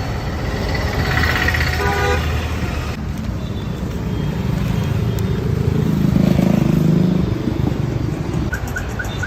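Road traffic: vehicle engines running, with a horn honking about a second in and a heavier vehicle passing louder around two-thirds of the way through.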